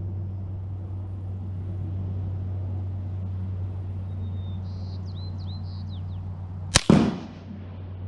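A single .223 rifle shot heard at the target about 100 yards downrange, near the end: a sharp crack, then a moment later the louder report, which echoes briefly. A steady low hum runs underneath.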